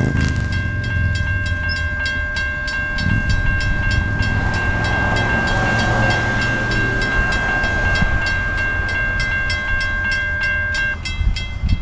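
Railroad crossing bell ringing in rapid, even strikes over the low rumble of an approaching CSX diesel locomotive hauling a coal train. A steady high tone runs under the bell and stops about a second before the end.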